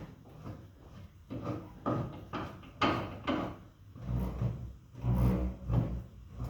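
Irregular metal scraping and knocking as a car's front coil spring is worked free of its seat with a spring compressor. The sounds get heavier and deeper about four seconds in.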